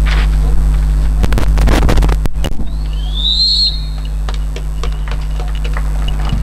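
Steady electrical hum on the open commentary microphone, with a cluster of sharp clicks a little over a second in and a short whistle that rises and then falls about three seconds in.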